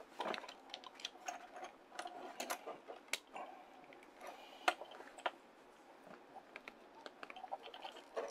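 Irregular small clicks and taps of plastic toy parts as a transformable wolf mech figure is handled and a rocket launcher is fitted onto it, with one sharper click about four and a half seconds in.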